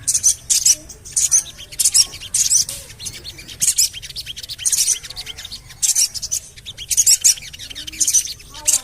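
Sogon (crimson sunbird) calling: short, sharp, very high "cuit" chirps in quick clusters, about two clusters a second.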